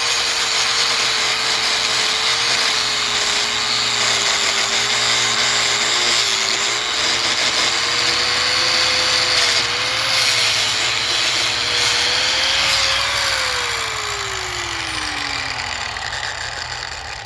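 A handheld power tool cutting into a plastic faucet water filter, with a high hiss of cutting and a motor whine that wavers under load. About thirteen seconds in the motor winds down, its pitch falling as it stops.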